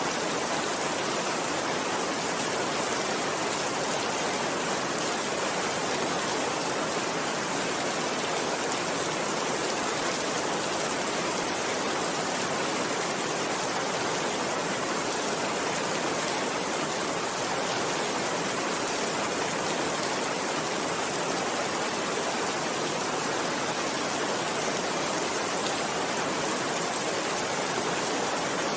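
Steady rainfall: an even, unchanging hiss of rain.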